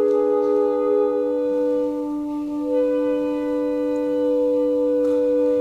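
A flute and clarinet ensemble (flutes, alto flute, bass flute and B-flat clarinet) playing long sustained chords, the harmony shifting a little past two seconds in.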